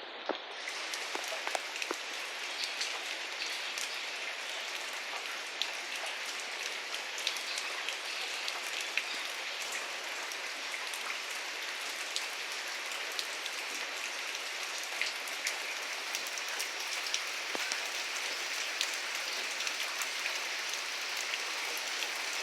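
Steady rain falling, an even hiss scattered with many sharp ticks of individual drops hitting surfaces.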